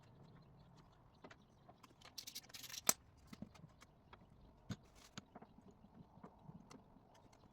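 Faint, scattered clicks and knocks of hand work on small parts. A short rasp a little past two seconds ends in a sharp click near three seconds, the loudest sound.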